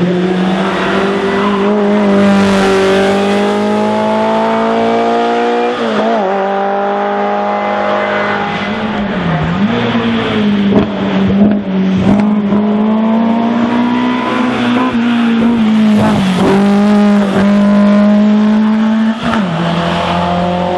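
Racing touring car engine at high revs, its pitch climbing through the gears with short drops at each shift or lift, several times over.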